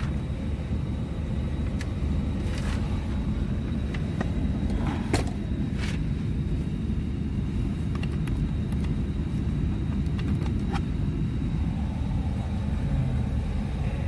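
2018 GMC Yukon XL running: a steady low rumble heard inside the cabin, with a few light clicks as a USB plug is handled. The sharpest click comes about five seconds in.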